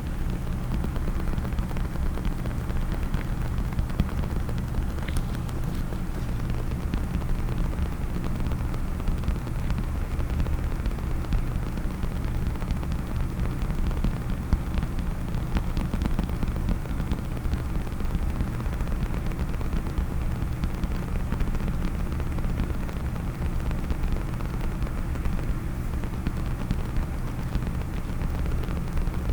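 Fingers tapping and scratching on a hard case close to the microphone, a fast, continuous stream of small clicks over a deep rumble.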